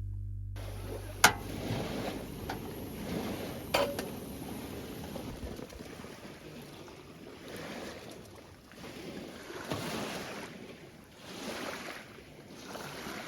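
Outdoor ambience of wind and lapping water, swelling and easing irregularly. Two sharp clinks cut through it, one about a second in and one near four seconds in. A plucked, harp-like music note dies away at the very start.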